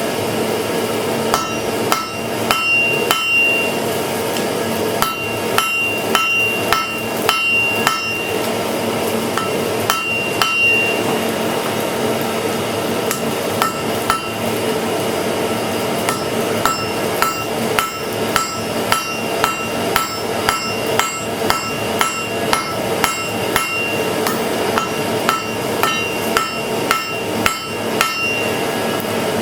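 Blacksmith's hammer striking hot iron on an anvil while forging a piece of old pry bar into an arrowhead. The blows come in irregular runs, each with a short ringing tone, and ease off for a few seconds about halfway through. A steady rushing noise runs underneath.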